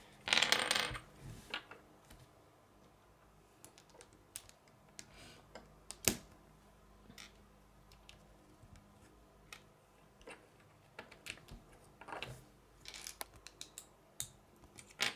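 Small plastic LEGO bricks being handled, pressed together and set down on a wooden tabletop: scattered light clicks and taps, with a sharper click about six seconds in and a short scraping noise at the start.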